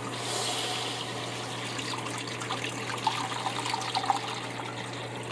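Water poured from a pitcher into a stainless steel pressure cooker, splashing steadily onto chunks of goat meat in the bottom of the pot.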